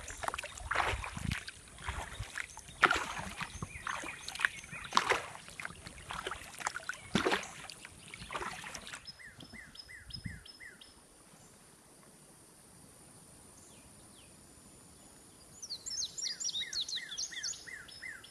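Water splashing and knocking from a kayak being paddled for about the first half. Then a bird sings a short run of quick down-slurred whistled notes about halfway through, and a longer run of the same notes near the end.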